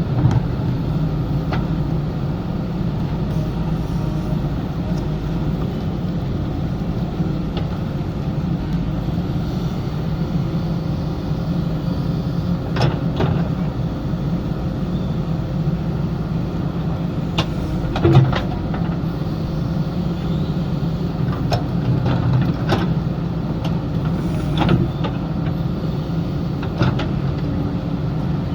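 JCB backhoe loader's diesel engine running steadily under working load, with a few sharp knocks through it, the loudest about eighteen seconds in.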